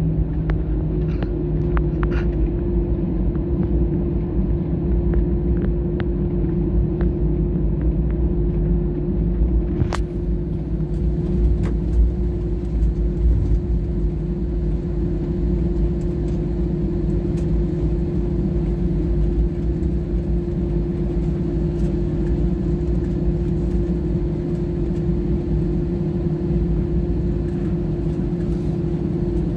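Jet airliner cabin noise during a slow taxi: the engines run at a steady low setting, giving a constant hum with a low rumble underneath.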